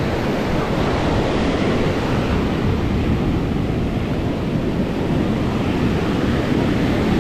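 Ocean surf breaking on a sand beach, mixed with wind buffeting the microphone: a steady, unbroken rush of noise.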